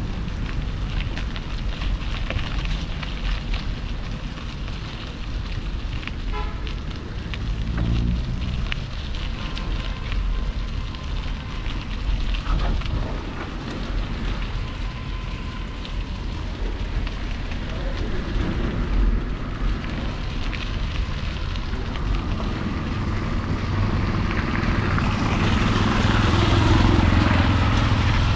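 Wind rushing over the microphone of a moving bicycle, over general street traffic noise; near the end a motor vehicle's engine grows louder as it comes close.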